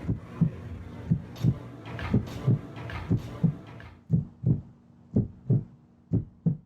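Heartbeat sound effect: deep double thumps, lub-dub, about once a second, over a low hum that fades out about four seconds in.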